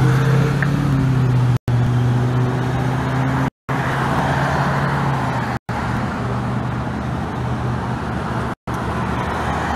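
Road traffic at an intersection, with a vehicle engine running in a steady low hum. The sound cuts out briefly four times.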